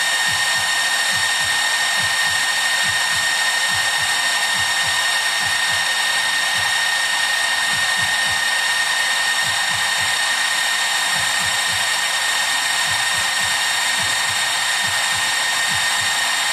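Small DC cooling fans on a Peltier cooler's heatsink running steadily: an even airy hiss with a thin, constant high whine.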